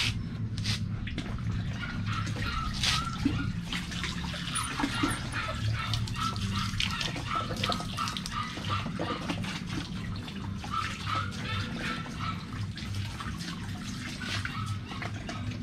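Water running from a garden hose and splashing into a plastic bucket as a puppy is rinsed in it.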